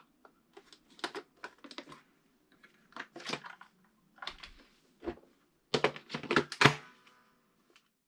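Hard plastic clicks and knocks as a robot vacuum's body is handled and turned over in the hands, irregular throughout, with the loudest cluster of knocks about six seconds in.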